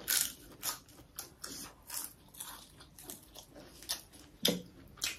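Close-up eating sounds: chewing and lip smacking on a mouthful of rice and meat curry, as a string of irregular wet clicks two or three a second. One louder smack comes about four and a half seconds in.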